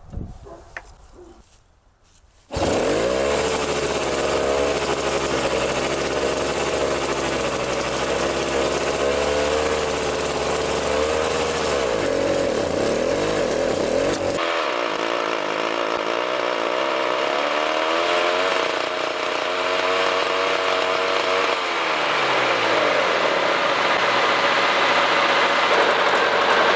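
The DT-75 bulldozer's 10-horsepower two-stroke pony starter engine runs loudly after starting abruptly about two and a half seconds in. Its pitch rises and falls repeatedly as the revs go up and down.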